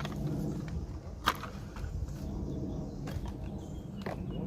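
Two sharp clicks, one about a second in and a fainter one near the end, over a low steady rumble.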